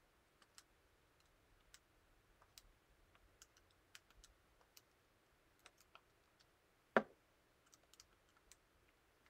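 Faint, irregular clicks of calculator buttons being pressed, well over a dozen, with one louder, fuller sound about seven seconds in.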